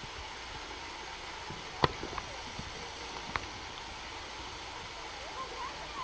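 Steady outdoor background hiss with a sharp click a little under two seconds in and a fainter click about a second and a half later.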